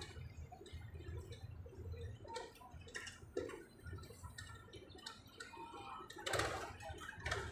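Quiet outdoor background with a low rumble and scattered light clicks and ticks, and a brief louder burst about six seconds in.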